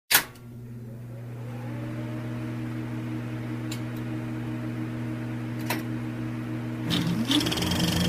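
A sharp click, then a steady electric motor hum that slowly grows louder, with a few faint clicks; about seven seconds in, a rising tone enters and the sound gets busier.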